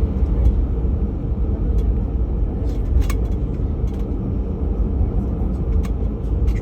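Airliner cabin noise: a steady, loud low rumble of the jet engines and airframe, with a few faint clicks or rattles.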